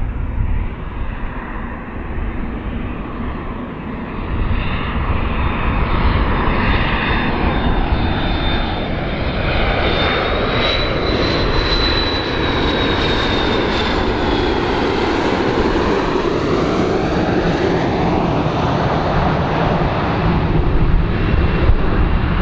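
Large airplane flying past, its engines a loud steady roar with a high whine that rises and then falls in pitch as it goes by, around the middle.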